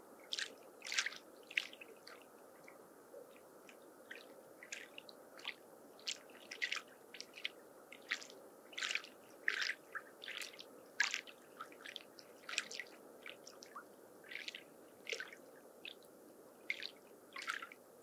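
Small lake waves lapping at the shore: irregular short splashes, about two a second, over a steady low wash of water.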